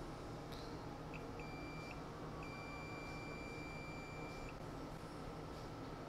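Electronic beeper sounding a steady high tone three times with uneven lengths: a short blip about a second in, a half-second beep, then a tone held for about two seconds, over a low steady hum.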